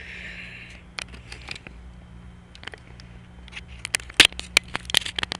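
Scattered light clicks and scrapes that bunch into a quick flurry of sharp ticks about four seconds in, over a steady low hum, with a soft hiss in the first second.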